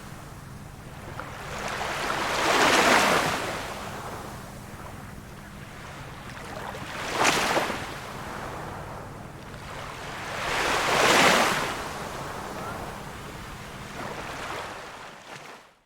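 Small waves of a calm sea washing in: four swells rise and fade about every four seconds, over a low steady rumble. The sound cuts off abruptly at the very end.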